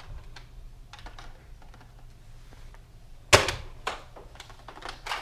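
Nerf Longshot CS-12 spring-plunger dart blaster being fired and its bolt worked: faint clicks, then one sharp, loud clack a little over three seconds in, and a quick run of further clacks near the end.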